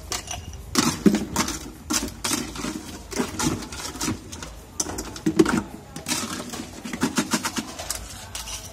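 Ice cubes clattering as they are scooped from a cooler with a plastic scoop and tipped into a glass: repeated irregular rattles and clicks of ice, several times a second.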